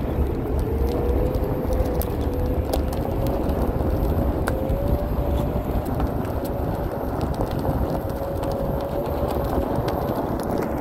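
Floatwheel ADV one-wheel electric board rolling on asphalt: a steady low rumble from the fat tyre on the pavement, with the hub motor's thin whine held on one pitch that creeps slightly higher as it goes.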